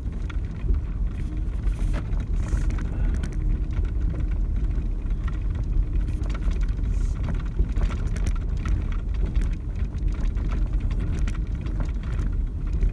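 Four-wheel-drive vehicle driving over a rough, bumpy dirt pasture road: a steady low rumble of engine and tyres with frequent knocks and rattles as it jolts over the ruts.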